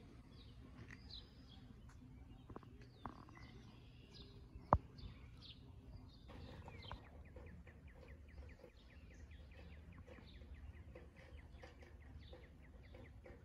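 Songbirds chirping in the trees, with a fast trill of evenly repeated short notes starting about six seconds in. A single sharp click a little under five seconds in is the loudest sound, over a low rumble.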